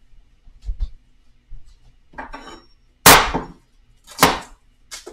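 A kitchen knife knocking against a wooden cutting board while celery is cut: a few light taps, then two loud, sharp knocks about three and four seconds in.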